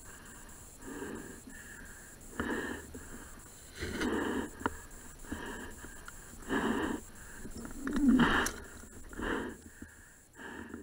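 A rider's heavy breathing close to the microphone, a loud breath about every second and a half: he is winded after falling with the bike on a hill climb.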